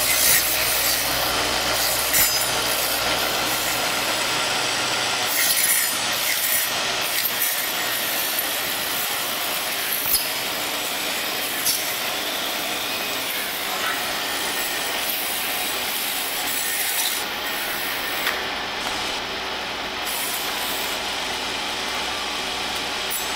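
Silk cocoon cutting machine running: its small circular blade and feed mechanism make a steady rasping whirr as cocoons are sliced open, with occasional sharp clicks.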